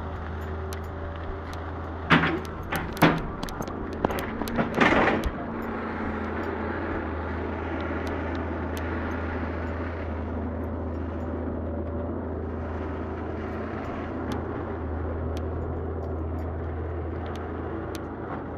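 Steady low rumble and hiss on a handheld camera's microphone while walking over a muddy, washed-out track, with a cluster of loud knocks and rustles from handling and footsteps about two to five seconds in.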